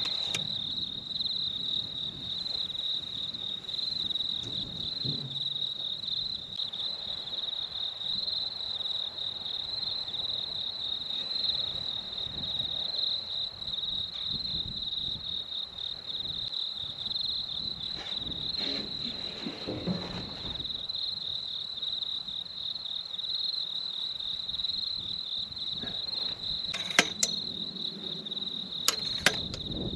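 Crickets chirping in a steady, high-pitched chorus across a dry grass field, with a couple of sharp clicks near the end.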